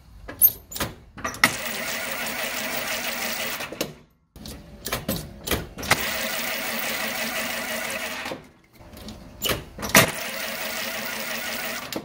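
1939 Graham supercharged straight-six being cranked by its starter in three tries of two to three seconds each, a few sharp clicks before each, and the engine never catches. The starter now turns over on its filed switch contacts, but the engine will not run, which the owner traces to a loose terminal on the overdrive kickdown switch.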